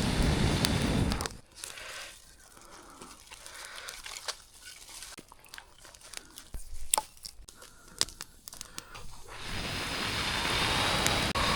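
Dry kindling crackling and snapping in scattered sharp clicks. A loud steady rushing noise cuts off about a second in and comes back near the end.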